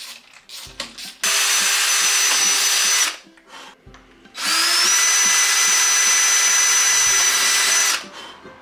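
Cordless drill running in two bursts, about two seconds and then about three and a half seconds, boring pilot holes for hinge screws into a uPVC window sash. The second run winds up in pitch as it starts, then holds a steady whine. A few light clicks come before the first run.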